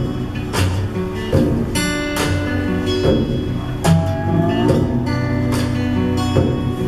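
A rock song played back through a pair of Sony SS-H12 loudspeakers: a guitar-led instrumental passage with a steady beat.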